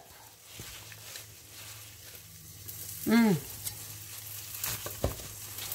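Food sizzling steadily in a frying pan on the stove, over a low steady hum. Near the end, a few knife chops through leafy greens on a plastic cutting board.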